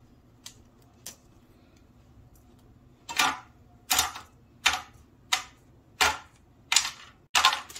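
Peanut-jaggery brittle (gajak) snapping as hardened pieces are broken off the slab along the score lines: two faint clicks, then from about three seconds in, seven sharp crunchy cracks in quick succession, roughly one every 0.7 seconds.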